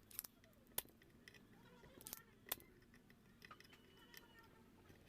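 Scattered sharp clicks and light taps, about half a dozen spread irregularly, the loudest near the start and around two seconds in, over faint background hiss.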